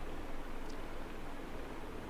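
Steady hiss and low hum of a desk microphone's room tone, with one faint short tick less than a second in.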